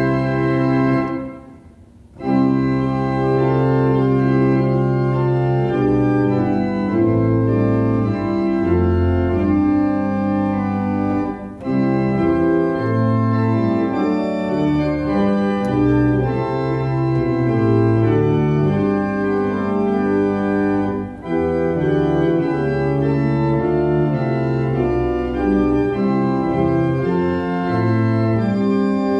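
Church organ playing a hymn tune in sustained chords over a deep bass line, with a short break between phrases about a second in and two briefer breaths between phrases later.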